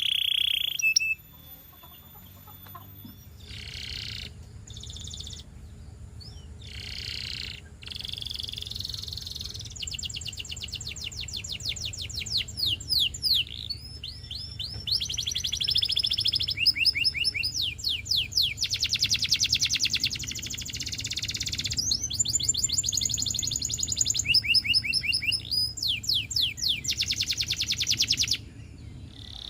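Russian canary singing a long run of song: rapid buzzing trills alternating with quick series of downward-sweeping notes, over a steady low hum.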